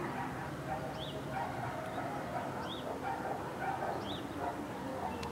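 Short animal calls repeating about every second and a half over steady background noise.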